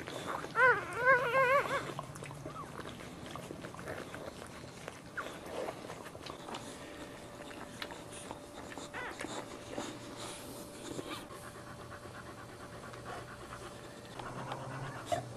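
Newborn Boxer puppy squealing: a loud wavering, warbling cry from about half a second to two seconds in, then only faint short squeaks over soft wet licking sounds as the mother licks the puppies.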